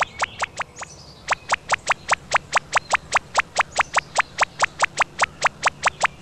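Cartoon rolling sound effect: a fast, even train of short sharp ticks, about five a second, with a brief break about a second in, over a low steady hum.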